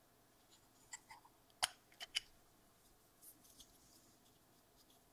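A few short, sharp clicks and taps as the magnet-held methacrylate door is pulled off an anodized aluminium box mod, the loudest about a second and a half in, followed by a couple of faint ticks.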